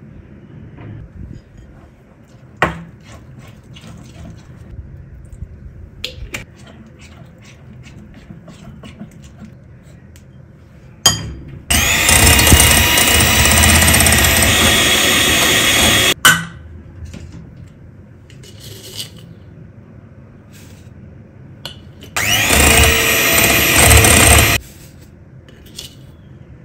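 Electric hand mixer beating egg whites in a glass bowl, run in two bursts: about four seconds a little before halfway, then about two and a half seconds later on, its whine rising as it speeds up at the start of the second burst. Between the bursts, light clicks and knocks of utensils against the bowl and counter.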